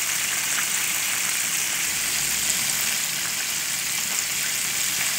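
Flour-dredged chicken deep-frying in hot oil: a steady sizzle with faint small crackles, the chicken nearly cooked through.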